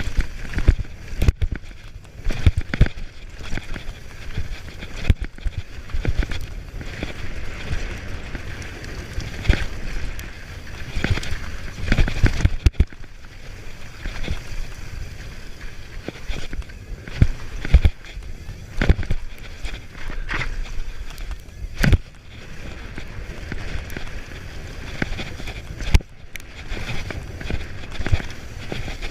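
Downhill mountain bike riding over a rough trail: tyres rolling on dirt and rocks, with frequent irregular clunks and rattles from the bike. Wind blows across the microphone throughout.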